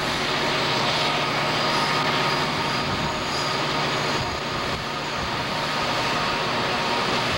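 Diesel-electric freight locomotives running steadily under load, with a constant low engine hum over wheel and rail noise, heard close from the lead unit.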